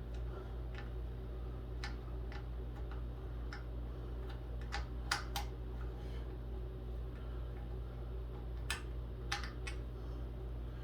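Irregular light clicks and ticks of hardware and tools being handled while a screw is fitted and tightened on a metal desk part, over a steady low hum.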